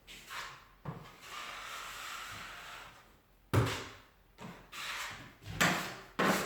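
An 8-inch steel taping knife scraping joint compound along a drywall joint, then four sharp clacks in the second half.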